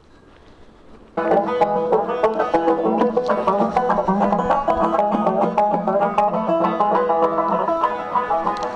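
Background instrumental music with fast-picked plucked strings cuts in suddenly about a second in and carries on steadily with rapid notes.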